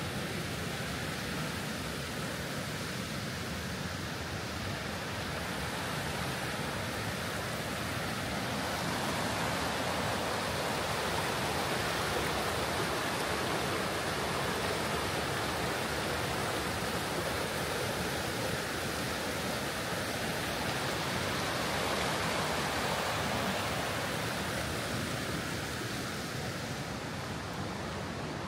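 Rushing creek water tumbling over boulders, a steady rush that grows louder through the middle and eases off slightly near the end.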